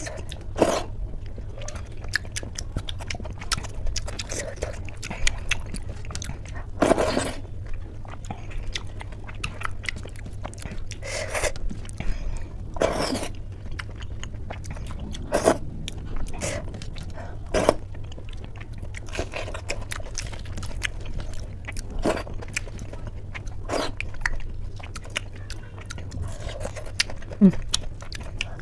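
Close-miked mouth sounds of eating soft dal khichdi by hand: wet chewing, lip smacks and clicks at an uneven pace, with squelching as fingers mix the soft rice and lentils. A steady low hum sits underneath.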